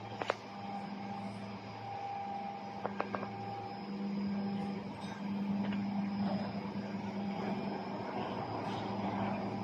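Steady electrical hum of running equipment, a low even drone with a faint higher tone over it, with a sharp click near the start and a quick double click about three seconds in.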